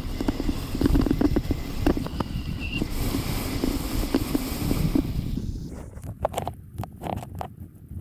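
Luge sled runners sliding over packed snow, a steady scraping rumble with wind on the microphone. About five and a half seconds in it dies down as the sled slows to a stop, leaving a few short scuffs and knocks.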